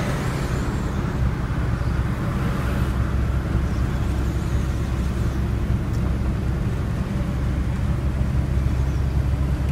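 Semi-truck's diesel engine and road noise heard from inside the cab while driving on the highway: a steady low drone that holds even throughout.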